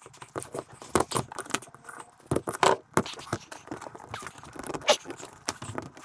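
Electrical cable being handled and prepared by hand: an irregular run of sharp clicks, taps and scrapes as the flex and its bared cores are worked over a plastic junction box.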